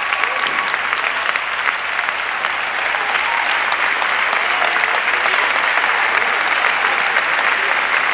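Crowd applauding steadily: many hands clapping at once in a dense, even wash.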